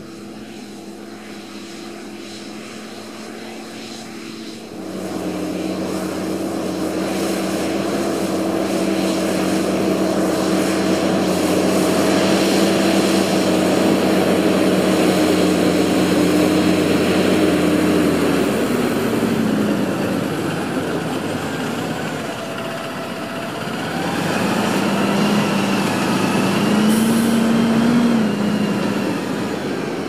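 Fendt 936 Vario tractor's six-cylinder diesel engine working hard, pulling a deep plough: a steady low drone that gets louder about five seconds in. About two-thirds through the engine note drops, then wavers up and down near the end.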